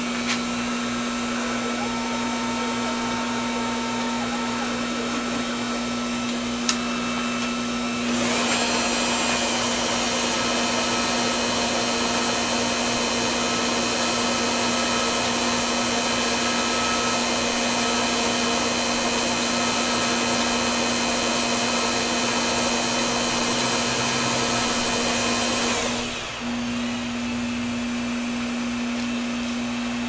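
Smithy combination lathe-mill running with a steady motor hum. About eight seconds in, the cutting tool starts taking a cut on the spinning workpiece, and a louder, higher cutting noise rides over the hum. Near the end the cut stops and the lathe runs free again.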